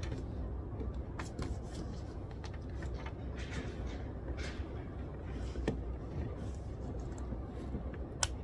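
Quiet library ambience: a steady low hum with scattered small clicks and short rustles of paper and desk handling, the sharpest click near the end.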